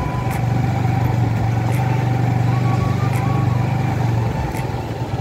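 A road vehicle's engine running steadily with a low drone, which eases off about four seconds in.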